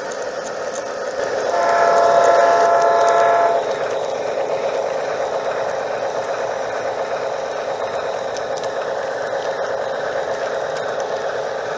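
Garden-scale model freight train rolling steadily along its rails, with the wheels' running noise throughout. About a second and a half in, the model locomotive sounds one toot of about two seconds.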